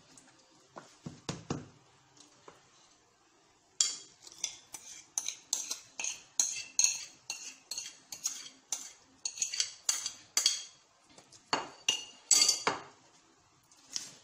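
A metal kitchen utensil clinking against a bowl in a quick, even rhythm of about three strikes a second, with a few louder knocks near the end, after soft knocks and rustles of hands in a plastic mixing bowl.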